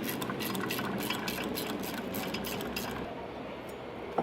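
Socket ratchet clicking in quick, irregular strokes while a bolt on the sterndrive is worked loose; the clicks thin out near the end.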